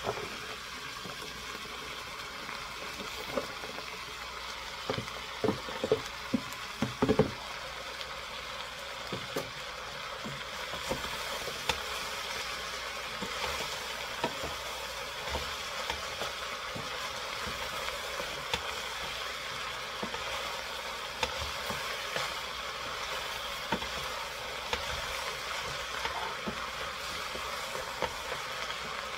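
Onions, vegetables and macaroni sizzling in a stainless steel pot while a wooden spoon stirs them, a steady hiss throughout. Several sharp knocks come a few seconds in.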